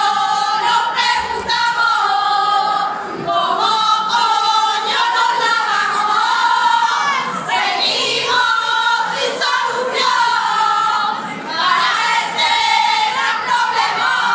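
A group of women singing a carnival song together in chorus.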